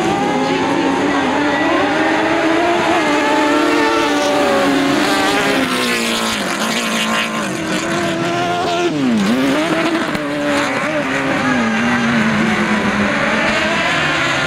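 A pack of autocross buggies revving hard together off the start and racing away, several engine notes rising and falling in pitch over one another. About nine seconds in, one engine's note dips sharply and climbs again.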